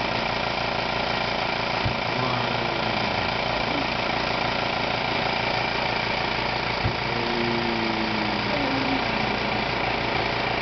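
Cough assist machine (mechanical insufflation-exsufflation device) running a cough cycle: a steady blower hum with a brief knock about every five seconds, as it pushes air into the lungs and pulls it back out to clear secretions.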